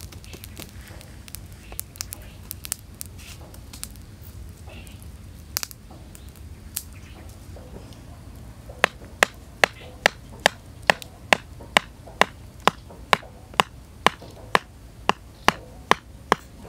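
A wooden mallet striking a stick held upright against a stone, around eighteen sharp, evenly spaced knocks at about two a second starting about halfway through. Before the knocking, a wood campfire crackles with scattered small pops.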